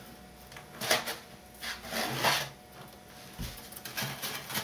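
Foam model airplane airframe being handled and turned over on a workbench: a few short rubbing scrapes of foam against hands and the bench, with light taps near the end.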